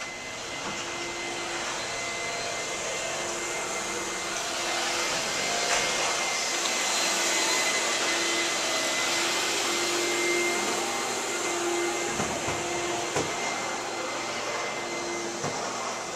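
A machine running steadily with a whooshing, vacuum-cleaner-like noise and a thin high whine, growing louder toward the middle and easing off later.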